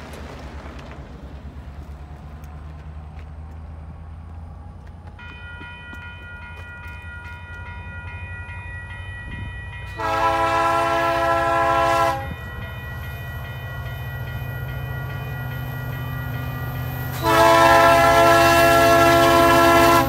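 CP SD60 diesel locomotive approaching with its engine rumbling, sounding two long blasts of its air horn: one of about two seconds, about ten seconds in, and another starting about seventeen seconds in. A grade-crossing bell starts ringing about five seconds in.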